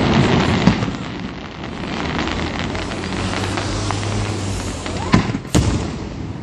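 Aerial firework shells bursting, with a steady crackle of falling stars and separate sharp bangs, one less than a second in and a louder one about five seconds in.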